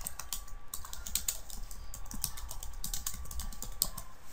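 Typing on a computer keyboard: an irregular run of quick keystroke clicks as a search phrase is typed out.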